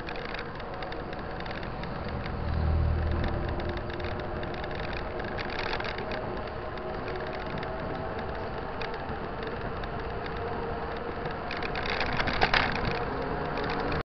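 Mountain bike rolling on asphalt, heard from the bike itself: steady tyre hum with small rattles and clicks, and traffic noise. A low rush swells about two to three seconds in, and a louder rush with sharp clicks comes near the end as a bus approaches in the oncoming lane.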